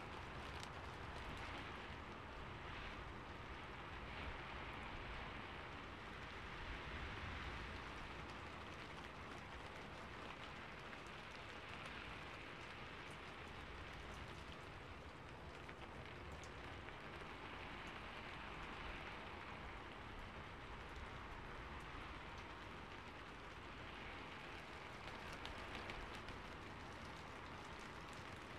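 Steady rain falling: a continuous, even hiss that swells and eases gently every few seconds.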